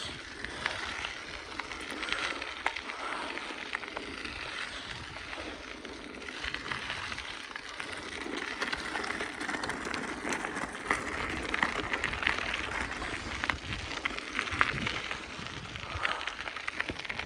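A 2004 BMX bicycle being ridden along a road: a steady rolling noise from the tyres with a low rumble, and frequent small clicks and rattles from the bike.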